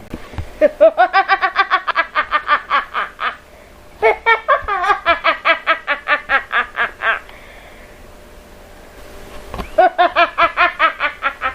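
A woman's crazed, evil villain laugh: three long fits of rapid, high-pitched 'ha-ha-ha' pulses, about six a second, with short pauses between the fits.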